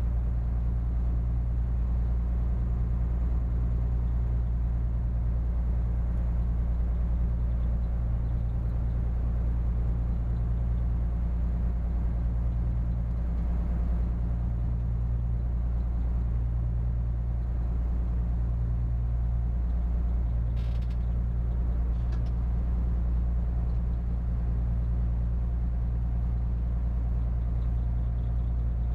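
A spits barge's diesel engine running steadily under way, a deep, even drone.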